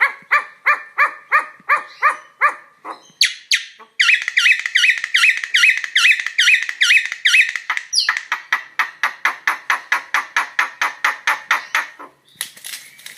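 Jalak klawu, a starling-family cage bird, giving long runs of short, harsh repeated notes: about three a second at first, then a faster run from about four seconds in that slows and fades near the end. This is the bird's 'coughing'.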